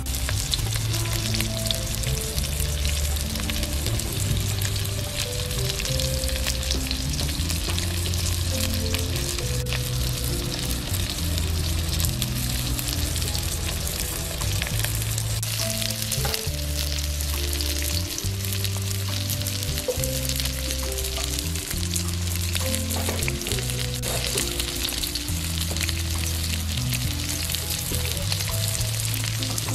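Oil sizzling steadily as whole potatoes and small onions fry in an iron wok over charcoal, with background music and its low bass notes underneath.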